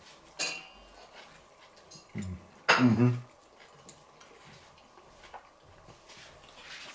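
Cutlery clinking and scraping on a ceramic plate as someone eats, with a short, louder voice-like sound about three seconds in.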